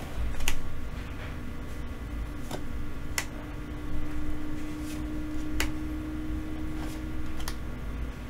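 Trading cards from a Digimon Card Game booster pack being flipped through by hand, each card slid off the stack with a short sharp flick of card stock, about once a second.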